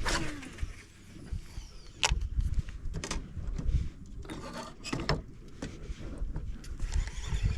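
Scattered knocks, clicks and rubbing from handling fishing gear in a boat, about half a dozen sharp knocks over a low, uneven rumble.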